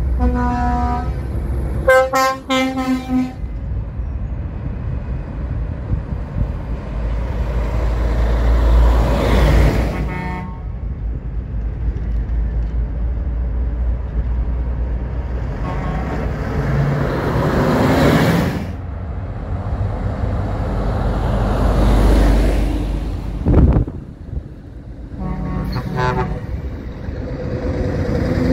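Truck air horns sounding: two multi-tone blasts in the first few seconds, then shorter toots about ten seconds in and again near the end. Between them heavy lorries' diesel engines run low and grow louder as each truck goes by, three times.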